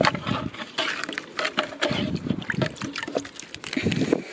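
Water sloshing and splashing irregularly in a plastic watering can as nematode powder is stirred into it by hand with a small plastic tray, mixing a stock solution.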